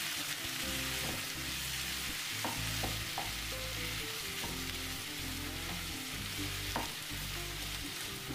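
Chopped tomatoes, onions, ginger and garlic sizzling in hot butter and oil in a pan, with a steady hiss. They are being stirred, and the spoon clicks against the pan a few times.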